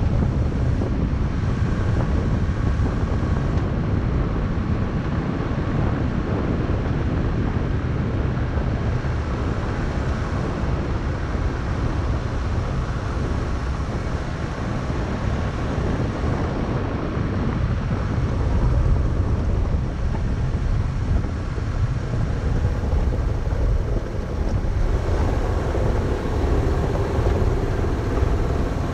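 A vehicle driving along a gravel road, heard from a camera mounted outside it: steady wind rumble on the microphone over tyre and gravel noise.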